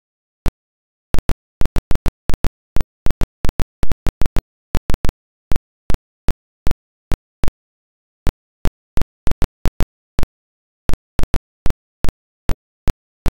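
Dead silence broken by irregular sharp clicks, about three or four a second at first and sparser after about five seconds in.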